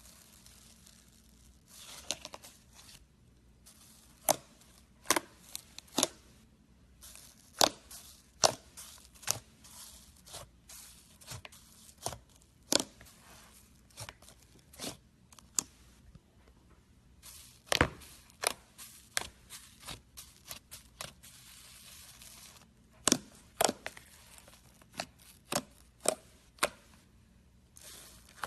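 Slime being squeezed and poked by hand: sharp, wet pops and crackles at irregular intervals, about one a second and sometimes in quick clusters, with stretches of soft hissing crackle between them.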